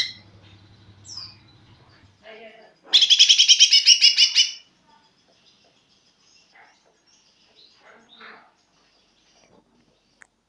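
Green leafbird (cucak ijo) still learning its song, giving a loud, rapid chattering burst of about ten quick repeated high notes lasting about a second and a half, a few seconds in, with a few faint softer notes before and after.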